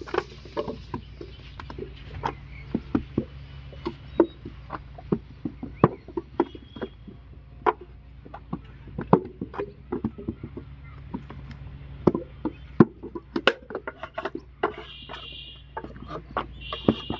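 Hand-moulding of wet clay bricks: clay slapped into brick molds and the molds knocked down onto the ground, giving irregular dull knocks and slaps, several a second, from more than one worker.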